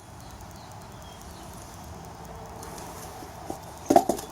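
Steady low background noise, then a small click and, near the end, two or three sharp knocks: tire irons being worked against a motorcycle wheel while levering the old tire off the rim.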